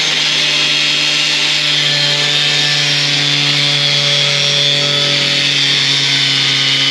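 Angle grinder with a cutting disc running steadily at an even pitch as it cuts through the thin sheet steel of a car's wheel-arch repair panel.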